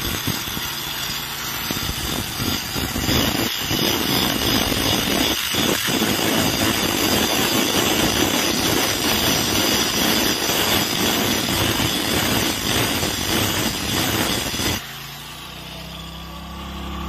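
Electric angle grinder grinding the steel end of a joggled rail fish plate, a steady harsh grind that wears down the shiny wear marks on the plate's bearing face. The grinding cuts off near the end, leaving a quieter low hum.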